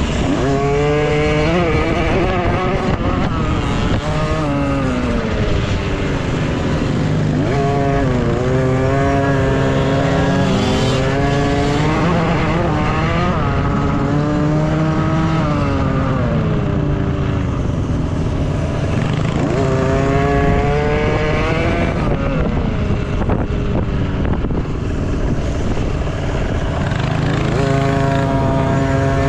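Several dirt bike engines racing at once, each revving up and dropping back again and again, so the pitch keeps rising and falling, over a steady low drone.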